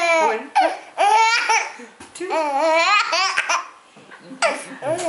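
Baby laughing out loud in about four bursts, each a quick run of ha-ha pulses, with short pauses between.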